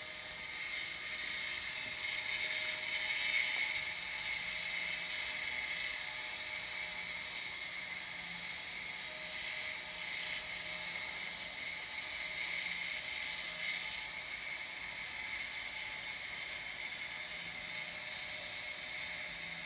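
Small home-built rose engine lathe running under its electric drive: a steady high-pitched mechanical whine with no strokes or pauses.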